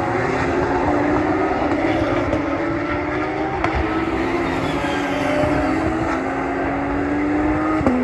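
Porsche 911 GT3 Cup race cars' flat-six engines running hard as the pack goes by, several engine notes overlapping in a continuous, slowly falling wail. A short sharp click near the end.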